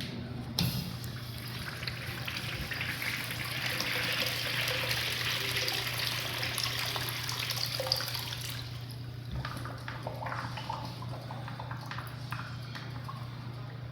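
Toilet flushing: a click, then rushing water for about seven seconds that falls away to a quieter trickle, over a steady low hum.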